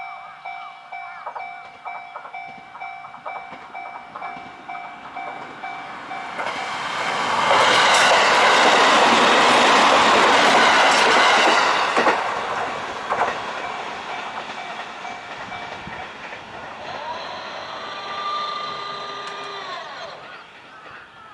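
Japanese level-crossing warning bell ringing over and over while a train passes through the crossing, loudest about eight to twelve seconds in, with wheels clattering over the rails. The bell stops after the train has gone, and near the end a whining tone rises, holds and falls away.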